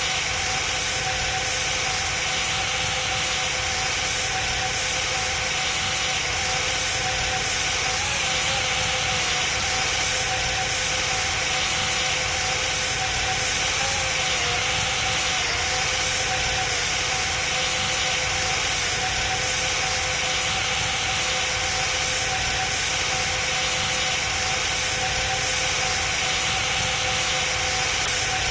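Steady cabin noise of an Airbus A319 airliner in flight: an even rush of airflow and engine noise with two steady hums running under it.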